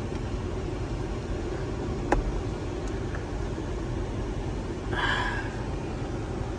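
A single sharp click about two seconds in as the overhead dome light's push switch is pressed, over a steady low hum in the SUV's cabin, with a brief rustle near five seconds.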